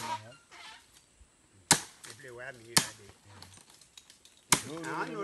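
Machete chopping into the base of a palm trunk: four sharp strikes, one to two seconds apart.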